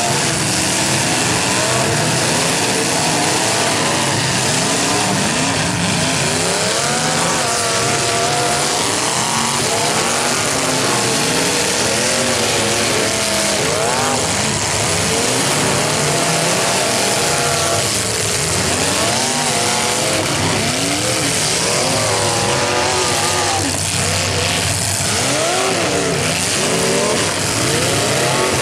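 Several demolition derby cars' engines revving hard up and down at once, overlapping rises and falls in pitch over a constant mechanical din.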